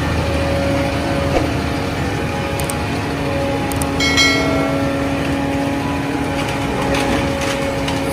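Concrete mixer truck's engine running steadily while the truck stands still, with a steady hum throughout. A brief high squeak comes about four seconds in.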